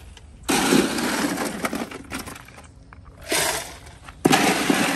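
Ice cubes poured from a bag into a water-filled tank in a car's trunk, rattling and crunching in three pours: a long one near the start, a short one past the middle and another near the end.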